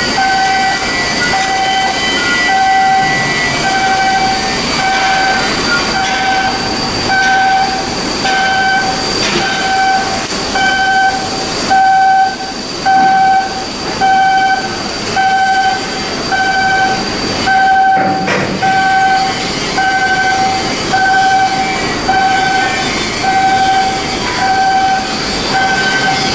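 An electronic warning beeper sounding a single-pitched beep a little faster than once a second, over a steady high whine and hiss of shipyard machinery.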